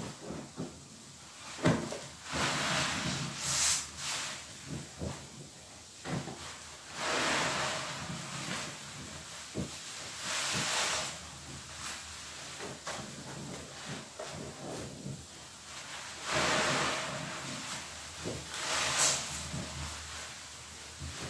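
A large sponge soaked with soapy suds squeezed and wrung by hand: wet squelching with hissing, crackling foam, in several separate squeezes a few seconds apart, with small sharp squishes between them.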